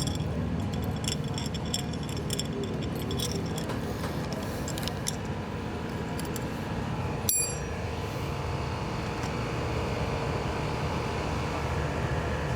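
Small metal clinks and taps from fork parts being handled during a fork-leg rebuild, with one sharper ringing clink about seven seconds in, over a steady low hum.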